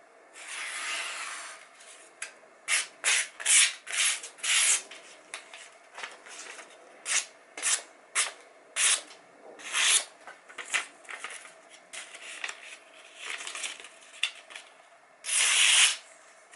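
Freshly sharpened kitchen knife slicing through a sheet of magazine paper to test the edge: many quick slicing strokes, with a longer cut about a second in and a longer, louder one near the end.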